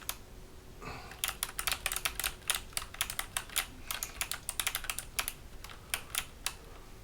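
Typing on a Hexgears Supernova mechanical keyboard fitted with clicky Kailh BOX Jade switches: quick, irregular keystrokes, each a sharp click. The keystrokes start about a second in and run on with brief pauses.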